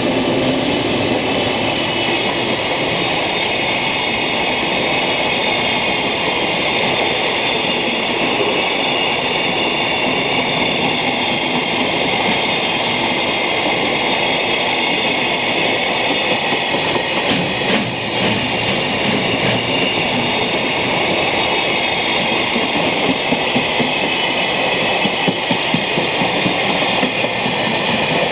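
A train of empty Koki container flatcars rolling past with a steady rumble of wheels on rail. Regular clickety-clack of wheelsets over rail joints comes through more clearly near the end.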